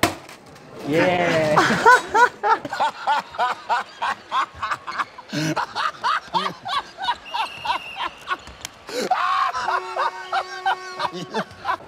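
Two men laughing hard in long, rapid peals, with a steady held tone sounding briefly near the end.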